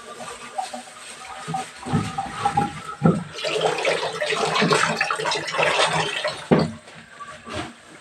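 Tap water running and splashing over a green bamboo tube as it is rinsed and rubbed by hand in a sink, with a couple of knocks of the bamboo against the sink.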